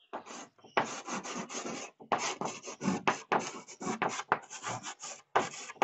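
Chalk writing on a blackboard: a quick, irregular series of short scratchy strokes with brief pauses between letters.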